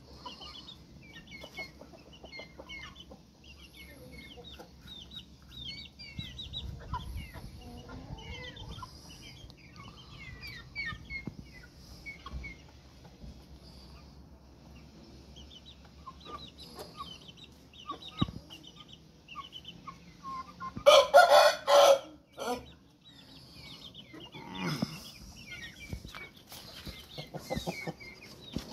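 Aseel chickens clucking, with many short high chirps throughout. A rooster crows loudly once, for about a second and a half, about two-thirds of the way through.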